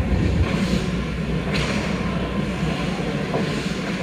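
Ice hockey rink sound heard from just behind the goal: a steady low rumble with skates on the ice, and a sharp click about one and a half seconds in.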